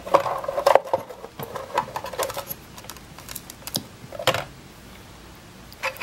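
Hands fitting a battery pack and its wiring into the hard plastic hull of a Babrit F1 RC boat: a quick run of clicks and plastic knocks, then a couple more around four seconds in.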